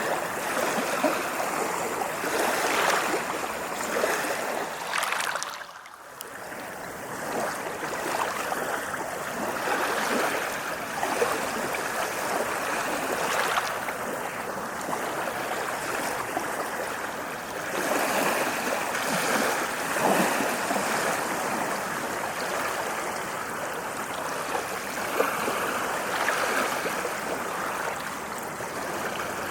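Ocean waves washing onto a shore: a continuous rushing surf that swells and eases, dropping away briefly about six seconds in.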